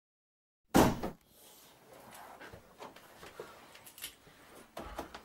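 After a moment of silence, a sudden loud bang, then faint room noise with scattered small knocks and a couple of dull thumps near the end.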